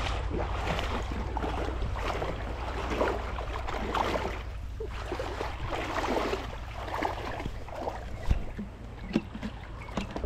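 Water sloshing and splashing irregularly, over a steady low rumble.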